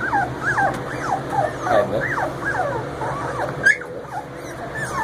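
Three-week-old Labrador retriever puppies whimpering and squeaking: a run of short, high-pitched cries that slide up and down in pitch, several a second.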